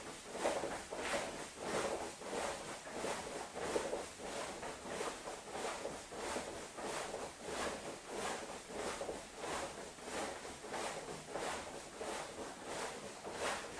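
Rhythmic swishing of clothing from arms swinging forward in big circles, a little under two swishes a second.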